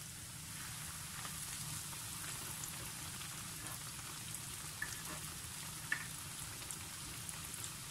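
Flour-breaded chicken pieces deep-frying in hot oil in a pan: a steady sizzle with scattered crackles and two sharper pops about five and six seconds in.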